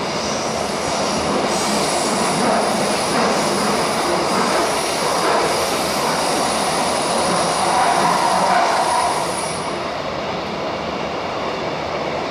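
Bucharest metro carriage running, heard from inside the car: a steady loud rushing rumble of the train in motion. A thin high steady whine comes in about two seconds in and stops near ten seconds, after which the noise eases a little.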